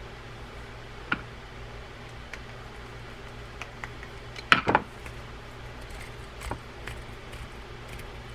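Scattered light clicks and taps of a screwdriver and small parts against a Shimano AX2000 spinning reel on a wooden workbench as the screw holding the rotor cap is fitted. There is a sharper clatter of several quick knocks about halfway through.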